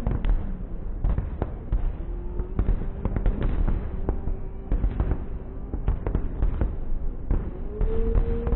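Fireworks display: a rapid, irregular series of bangs and crackling pops, with a steady tone held underneath through much of it.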